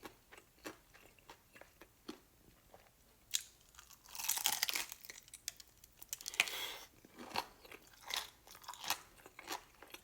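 Close-up chewing and biting into crispy fried chicken: crackly crunches of the fried coating with rhythmic chewing clicks, two longer bursts of crunching in the middle.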